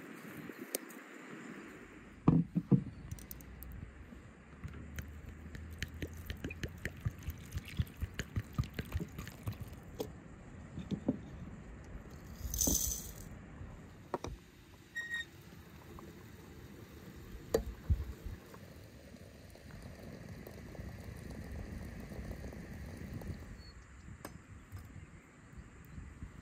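Many small clicks and snaps as dandelion flowers are picked by hand. Then a glass teapot clinks and water runs into it from a brass samovar's tap.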